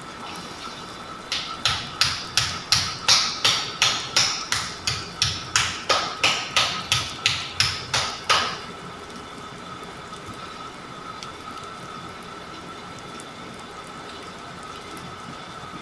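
Percussive massage strokes: hands striking the body in a quick, even rhythm of about three slaps a second. The run lasts about seven seconds, then stops suddenly.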